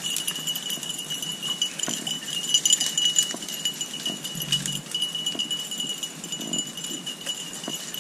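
Brush and dry undergrowth crackling and rustling in many small, irregular clicks as hunters and beagles push through cover to flush a rabbit. Under it runs a steady, high-pitched whine.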